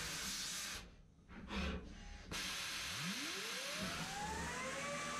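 Biemmepi QUBE Frames 5-axis CNC milling machine cutting acetate eyewear frames, a steady hiss of the cutter. It drops away for about a second and a half. From about three seconds in, the spindle spins up with a rising whine that levels off at a steady pitch.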